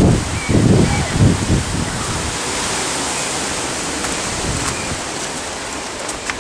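Wind buffeting the camera microphone outdoors, with heavy low gusts in the first second or so, then a steady rushing hiss. A few faint, short high chirps come now and then.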